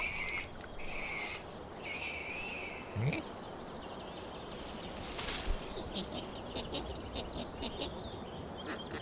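Outdoor ambience on a cartoon soundtrack: small birds chirping in short repeated phrases over a soft steady hiss, with a brief rising sound about three seconds in.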